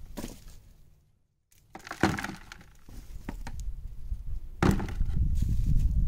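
Crackling, snapping and rustling as potato plants are handled and pulled up out of the soil. There is a low rumble under it. The sound cuts out briefly about a second in, and the crackling gets louder and denser near the end.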